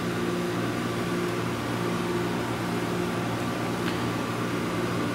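Steady electrical hum with a hiss, unchanging throughout: running machinery or ventilation in the room.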